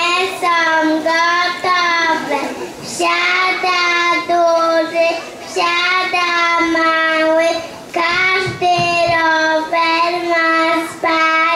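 A young child singing solo into a microphone, one voice holding long notes in short phrases.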